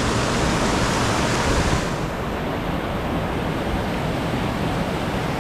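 Waterfall rushing steadily into a deep plunge pool, a loud, even wash of falling water; the hiss loses some of its top end about two seconds in.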